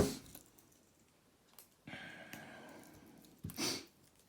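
A loud exasperated sigh, then faint scratching and rustling as fingers pick at the shrink wrap on a sealed deck of cards that has no tear tab. A second short breath comes near the end.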